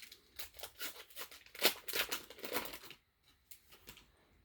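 Wrapper of a baseball card pack being torn open and crinkled: a quick run of short rips and rustles lasting about three seconds, loudest about a second and a half in, then it stops.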